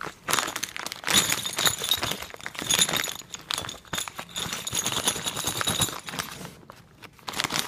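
Loose metal parts of a diesel injection pump repair kit (brass caps, copper and steel washers) clinking and jingling inside a plastic bag as it is shaken and turned in the hand. The clinking dies down about six seconds in, with a few more clatters near the end.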